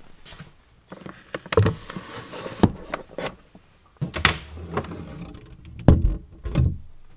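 A glass clamp-lid jar being set into a wooden kitchen cabinet: a series of knocks and clunks with a paper bag rustling, then the cabinet door shutting near the end.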